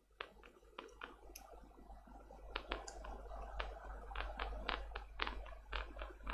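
Prying and working loose glued-in parts inside a cheap tablet: irregular small clicks and snaps over scraping, getting busier and louder from about two and a half seconds in.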